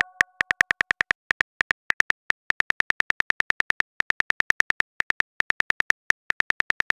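Phone on-screen keyboard click sounds as a message is typed letter by letter: short, crisp ticks about seven a second, with a few brief pauses.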